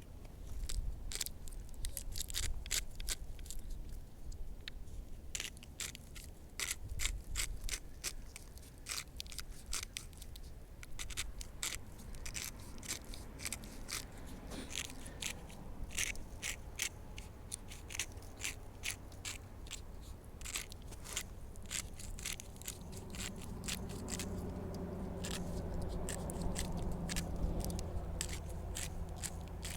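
Hand-twisted spice grinder grinding coarse salt over beef: a long run of rapid, crunching clicks.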